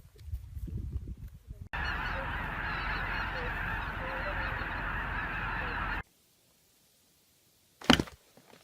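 A large flock of birds calling all at once, a dense honking chorus that starts and stops abruptly. Before it there is a low rumbling, and near the end a single short sharp sound.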